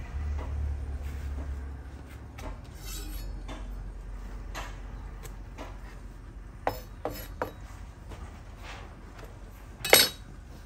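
Light taps, knocks and rustles of hands handling a bunch of chives on a wooden cutting board, with three sharper knocks past the middle and one loud clack near the end. A low rumble fades out in the first second or two.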